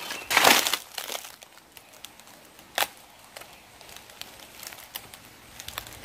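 Dry leaves and undergrowth rustling and crunching, loudest in the first second, then fading to faint scattered crackles, with one sharp click a little under three seconds in.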